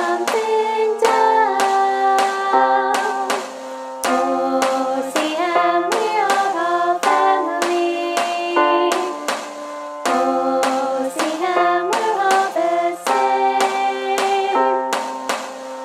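A song sung in two-part harmony over a strummed plucked-string accompaniment, with a sharp strum about twice a second.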